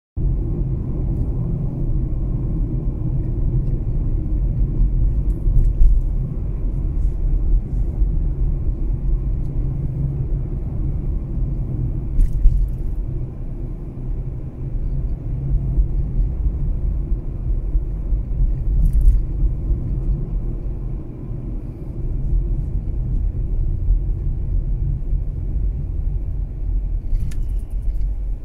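Steady low rumble of a Mazda 3 being driven: road and engine noise, with a few faint clicks.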